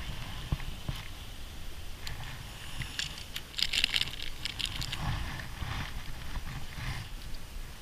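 Rustling of a nylon backpack being rummaged, with a plastic bait packet crinkling and scattered light clicks of handled gear; the crinkling is loudest about three and a half seconds in.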